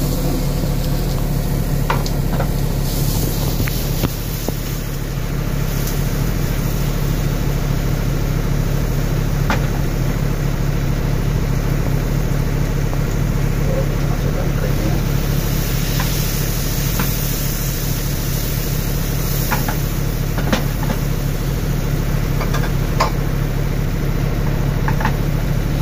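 A steady low machine hum that doesn't change, with a few scattered light clicks and taps.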